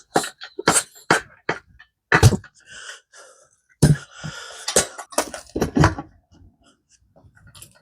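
Irregular knocks and clanks of tools and a mini bike wheel being handled during a tire change: about a dozen sharp strikes, with short bursts of hiss between them.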